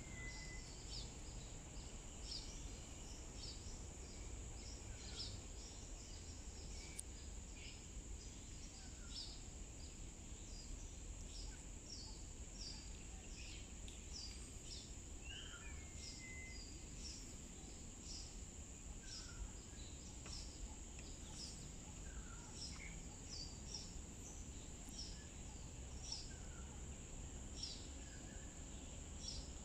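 Wetland ambience: many short bird chirps and a few falling whistled calls over a steady high-pitched insect drone, with a low rumble underneath.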